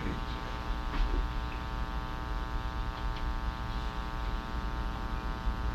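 Steady electrical mains hum with a buzzing stack of overtones, and a few faint clicks about one second in and around three seconds in.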